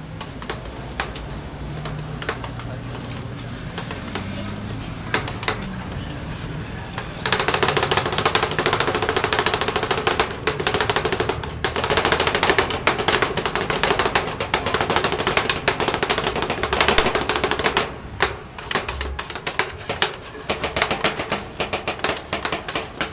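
Dense, rapid rattling clatter over a steady motor hum, starting suddenly about seven seconds in and cutting off about ten seconds later, followed by scattered sharp clicks and taps.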